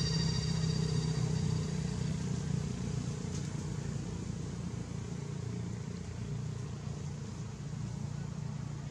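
Low, steady rumble of a motor vehicle engine, slowly fading away, with a few high thin tones that die out in the first couple of seconds.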